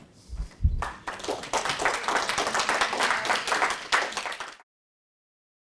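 Audience applauding, dense clapping that starts about a second in after a low thump and cuts off abruptly near the end.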